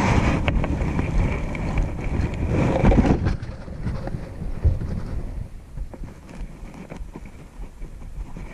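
Wind buffeting the microphone, a gusty rumble that is strongest for the first three seconds and then eases.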